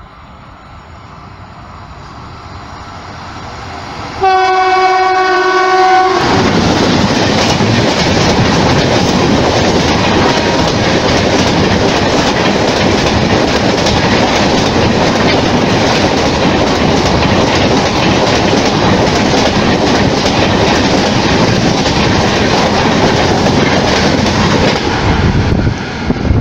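Indian Railways Kerala Express, hauled by a WAP-7 electric locomotive, approaching at speed and growing louder, its horn sounding a chord of several tones for about two seconds. Then a loud rush as the coaches pass close by, the wheels clattering over rail joints.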